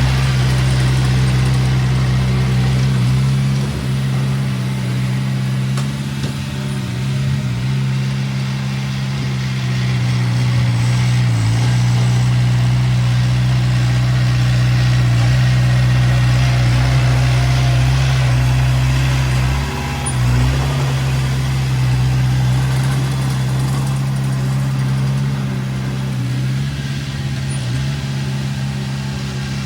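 Heavy earthmoving machine's engine running steadily at a constant speed, with a brief dip in level about twenty seconds in.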